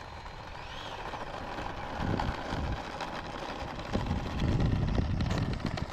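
Wind buffeting the microphone in low rumbling gusts that grow stronger after about two seconds, with a faint high whine gliding up and back down about a second in.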